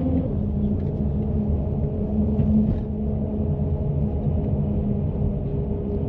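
Car tyres rolling over a steel grid bridge deck, heard from inside the cabin: a steady low rumble with a droning hum.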